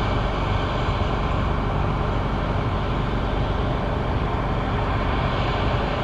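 Claas Lexion 780 TerraTrac tracked combine harvester running steadily under load while harvesting an oilseed crop with a MacDon FD140 draper header.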